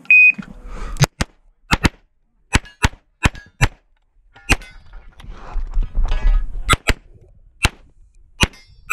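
Shot-timer beep, then a CZ Shadow 2 9mm pistol firing a rapid string of about thirteen shots, mostly in quick pairs, with a pause of about two seconds in the middle.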